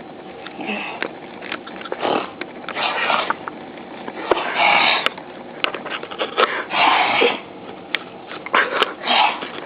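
Repeated loud sniffing, about seven sharp sniffs roughly a second apart, with light clicks in between.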